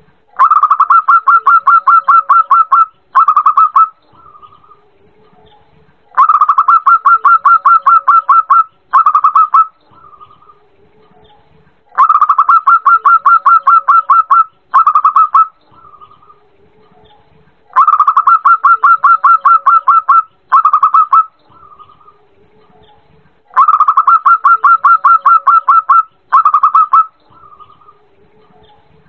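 Zebra dove (perkutut) song: a rapid run of staccato cooing notes lasting about two and a half seconds, then a short tail of a few notes. The phrase repeats five times, about every six seconds, with softer, lower sounds in the gaps between phrases.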